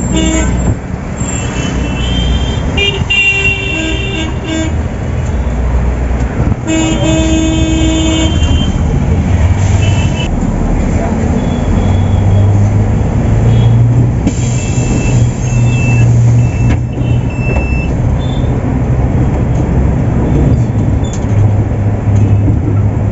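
Road noise inside a Volvo 8400 city bus in traffic, with vehicle horns tooting several times during the first eight seconds or so. Then a steady low engine drone that grows stronger from about ten seconds in as the bus gets under way.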